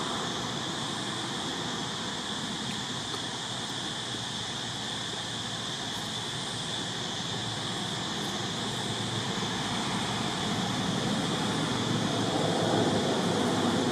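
Steady outdoor background noise: an even hiss with a constant high, continuous buzz over it, growing slightly louder near the end.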